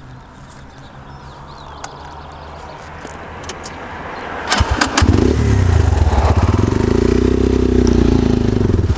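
A low rumble growing steadily louder, then a few sharp clicks and a motorcycle engine starting about five seconds in and running loudly with a pulsing beat.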